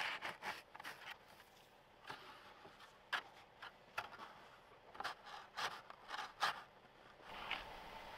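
Short, scattered scrapes and crunches in snow, about half a dozen at irregular spacing, as traction boards are worked into the snow under a stuck pickup's front tyre. A steady hum sets in near the end.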